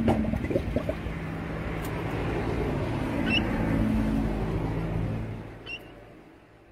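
A male dromedary camel calls from its throat with its dulla blown out of its mouth: a rough, crackling start that settles into a steady low drone and fades away near the end. The dulla display is a sign of a bull in rut.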